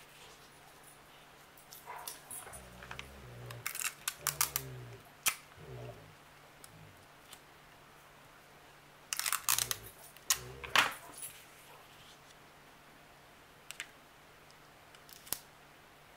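Sheets of printer paper rustling and being shifted and pressed on a cutting mat. About nine seconds in comes a quick burst of clicks and crackle as clear tape is pulled off a desk tape dispenser and torn, with a few light taps from hands pressing the tape down.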